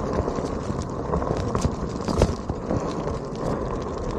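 Onewheel rolling over gravel, its tyre crunching steadily while small rocks flick up and tick against the board, with a sharper knock about two seconds in.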